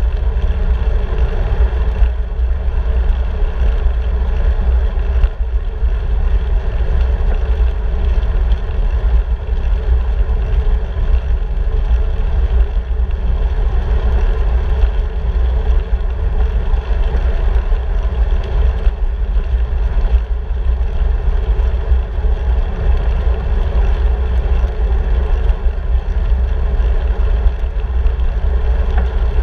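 Steady wind rush buffeting the microphone of a handlebar-mounted camera on a moving bicycle, a deep, unbroken noise with no distinct events.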